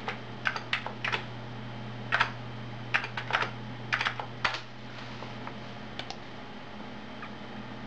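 Keystrokes on an Amiga computer keyboard, typing an IP address as a dozen or so quick clicks in short runs over the first four and a half seconds, then a couple of lone taps. A steady low hum runs underneath.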